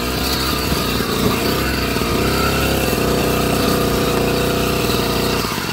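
Ride over a rough dirt trail: a steady rumble with a motor-like hum that rises and falls in pitch.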